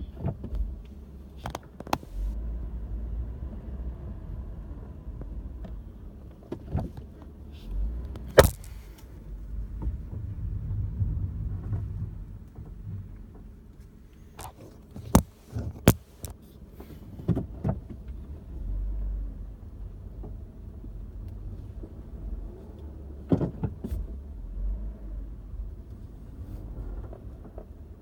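Lexus IS moving with a low, varying rumble, broken by several sharp clunks: the loudest about eight seconds in, a pair around fifteen to sixteen seconds, and more near the start and around twenty-three seconds. These are the braking-and-stopping noises the owner reports are still there after the car was fixed.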